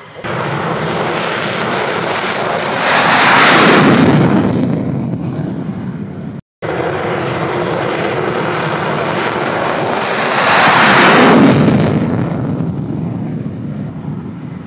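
Two F-16C Fighting Falcon fighter jets taking off one after the other, each jet roar swelling to a loud peak as the aircraft passes on its take-off run and then fading away, the second with its afterburner lit. A sudden short break about six and a half seconds in separates the two runs.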